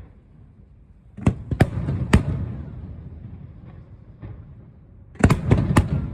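Fireworks bursting overhead: three sharp bangs about a second in, then a quick cluster of three or four near the end, each trailing off in a low rumble.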